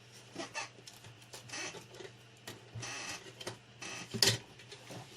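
Plastic parts and film sheets of an LCD monitor being handled during reassembly: a few brief sliding scrapes and scattered clicks and taps, the loudest tap about four seconds in, over a steady low hum.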